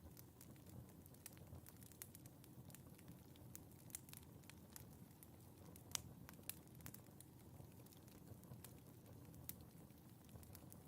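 Wood fire crackling in a fireplace: irregular small snaps and pops over a soft low rumble of flames, with one sharper pop about halfway through.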